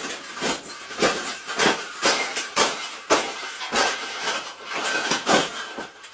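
An angry parrot giving a rapid series of harsh, hissing squawks, about ten in a row, each short and rough.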